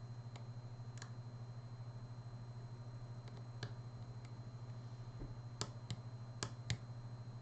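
Irregular small metallic clicks of a lock pick tapping pins inside a GeGe AP2000 lock cylinder, the tapping used to find and set pins in the overmilling. A few faint clicks come first, then four louder ones in quick succession near the end, over a steady low hum.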